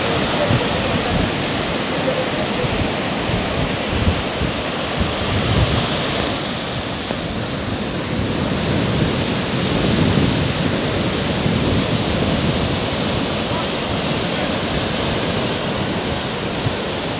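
Sea surf breaking on the shore: a steady rushing wash of waves.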